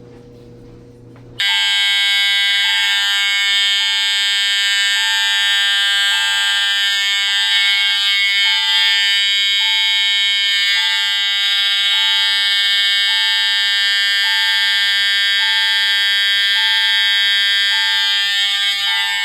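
Fire alarm horn strobes and a chime go into alarm all at once about a second and a half in, then sound continuously. The steady horn blare is overlaid with a chime tone that switches pitch roughly every second.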